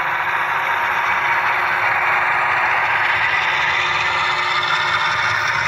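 Model train running past close by: a BNSF diesel locomotive and covered hopper cars rolling along the track, with a steady hiss and rattle.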